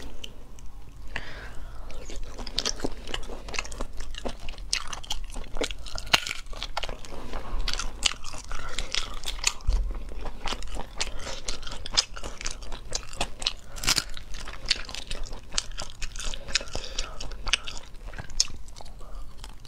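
Close-up eating sounds: snail shells being cracked and pulled apart by hand, with biting and chewing, as a dense run of short sharp cracks and wet smacks.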